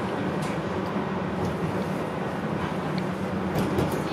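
Tram running along street rails, heard from inside the car: a steady low rumble, with a few light clicks near the end.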